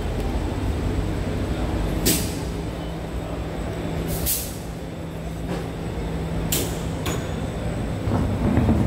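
Alstom Movia R151 metro train standing at the platform: a steady low hum and rumble, broken by several short, sharp hisses of air released from its pneumatic system, a second or two apart.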